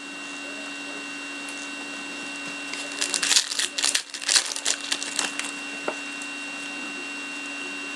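A foil trading-card pack crinkling and tearing as it is ripped open by hand, a burst of crackling from about three seconds in that lasts a couple of seconds. A steady electrical hum runs underneath.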